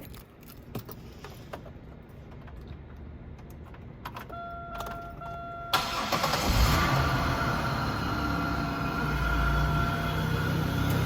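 A car's warning chime sounds for about a second and a half, then the engine cranks and starts and runs at a steady idle. A few light clicks come before the chime.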